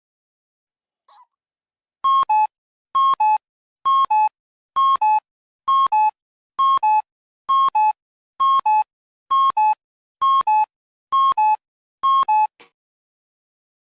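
Cuckoo clock calling "cu-ckoo" twelve times, each call a higher note dropping to a lower one, about one call a second.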